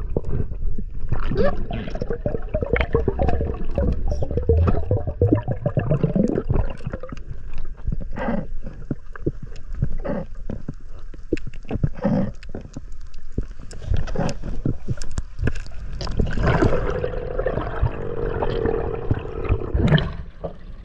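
Water heard through an underwater camera: gurgling bubbles and rushing water with a low rumble, crossed by many scattered clicks and crackles. Stretches of bubbling come about a second in and again near the end.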